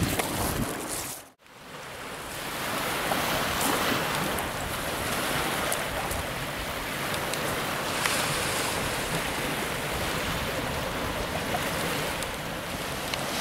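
Small waves washing onto a pebble beach, with wind on the microphone. The sound drops out briefly about a second in, then the steady wash carries on.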